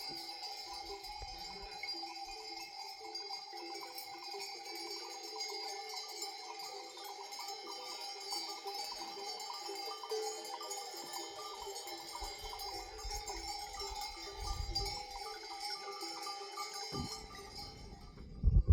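Many bells on a herd of goats and sheep ringing and jangling together without a break as the animals move. A few loud low thumps come near the end.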